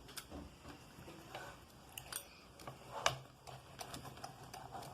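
Pizza cutter cutting through a homemade pizza on a plate: faint scattered clicks, scrapes and light knocks.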